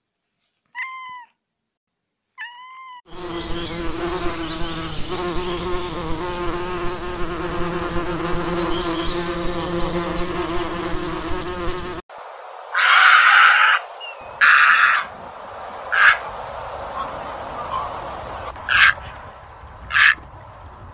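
A cat mewing twice in short high calls, then a dense steady buzz of flying insects with a low hum underneath. Midway it cuts to a different recording: five loud, short, harsh bursts over a steady hiss.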